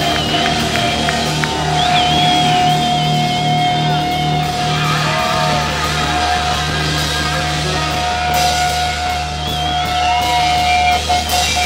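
Live hard-rock band playing loudly in a club, with electric guitars, bass and drums. An electric guitar holds one long, wavering note from about two seconds in until near the end, over a steady bass, with cymbal crashes near the end.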